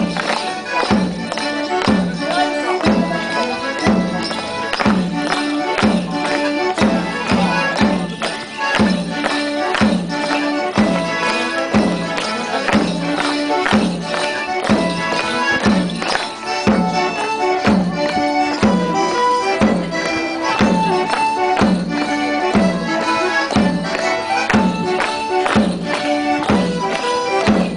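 Traditional North West morris dance tune played live, held instrument notes over a steady beat, with the clatter of clogs striking stone paving in time.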